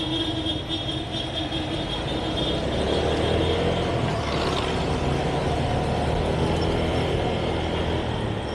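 Motorcycle engine running steadily while riding, with road and wind noise. A thin high whine sounds over it for the first two or three seconds.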